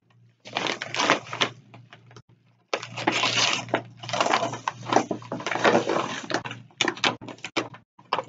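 Paper rustling and crinkling as a large manila envelope is handled and the sheets inside are pulled out, in two long stretches, followed near the end by a quick run of sharp paper snaps and taps.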